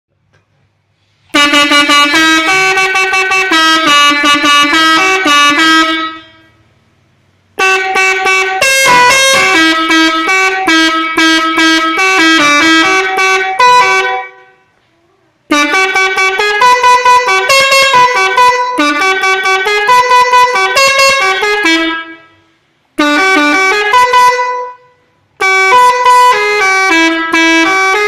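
Six-trumpet 'telolet' air horn, fed by an air compressor, playing melodic tunes note by note. Five loud phrases, each several seconds long except a short fourth one, broken by brief silences; the first starts about a second in.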